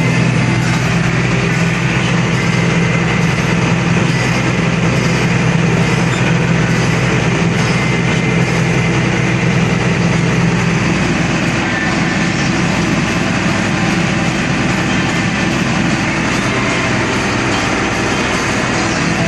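Large diesel harvest machinery running steadily under load, a loud engine hum over a dense mechanical clatter. The engine's low tone weakens about halfway through and strengthens again near the end.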